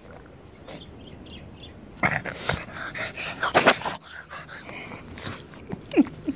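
Japanese Chin dog snuffling right at the phone, its fur rubbing the microphone in loud rustling bursts for about two seconds. It makes a couple of short low vocal noises that fall in pitch near the end.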